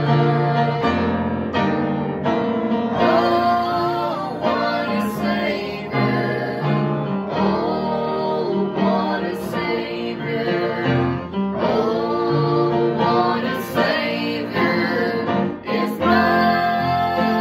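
Two women singing a gospel hymn in harmony, accompanied by an upright piano.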